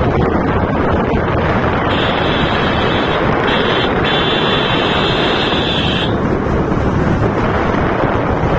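Wind buffeting the microphone on a moving motorbike, with the engine's running noise underneath. About two seconds in, a high steady buzz starts; it breaks off briefly twice and stops about four seconds later.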